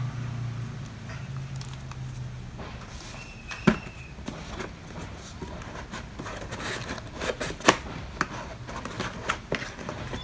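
Hands handling a cardboard laptop box and its cardboard insert: scraping and rustling with a run of knocks and clicks. The two sharpest knocks come about a third of the way in and a little past the middle.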